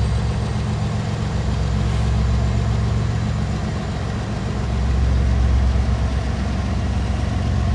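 Diesel freight locomotives, a Canadian Pacific SD70ACU leading a second unit, running as they pull a train past: a steady low engine drone that swells about five seconds in.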